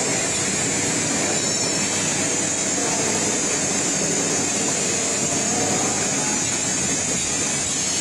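Steady, even running noise of an automatic hot foil stamping machine working on plastic cups, with no separate strokes standing out.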